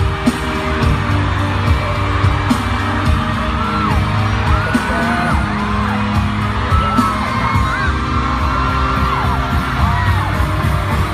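Pop music with singing and shouted whoops over a steady heavy beat.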